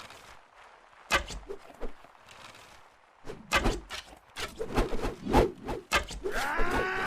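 A series of knocks and thumps, sparse at first and then coming thick and fast, with a voice starting up near the end.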